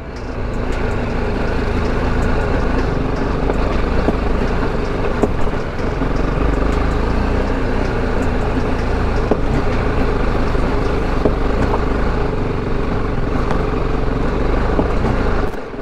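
BMW G310GS single-cylinder engine running steadily as the motorcycle rides over a rough, rocky dirt track, with scattered small clicks and knocks.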